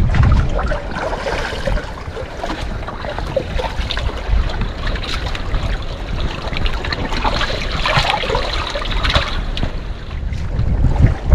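Water splashing and trickling around a small boat at sea, an uneven spattering with many small ticks, with wind rumbling on the microphone at the start and again near the end.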